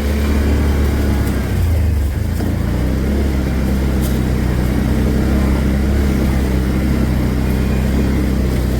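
Vehicle engine running steadily at an even speed while being ridden.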